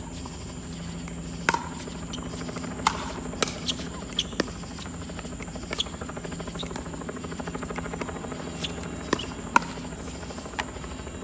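A pickleball rally: about a dozen sharp pops as paddles strike the plastic ball and it bounces on the hard court, coming irregularly and closest together from about one and a half to four and a half seconds in. A steady low hum and a thin high whine run underneath.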